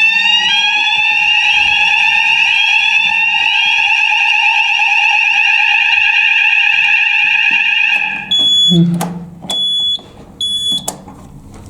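Fire alarm sounder going off during a weekly fire alarm test. It gives a rising sweep tone, then changes to a steady tone that cuts off about eight seconds in. Three short high-pitched beeps follow, about a second apart.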